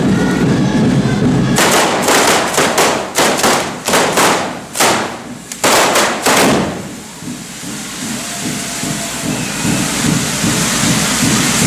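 Correfoc fireworks: a dense low rumble, then a quick run of about ten loud firecracker bangs between about one and a half and seven seconds in. After that come the steady hiss and crackle of hand-held spark-spraying fountains (carretilles).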